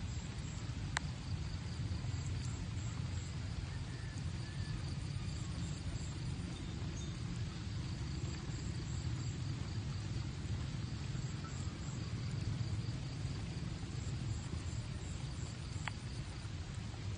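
Insects chirping in a faint, pulsing rhythm over a steady low rumble, with two small sharp clicks, one about a second in and one near the end.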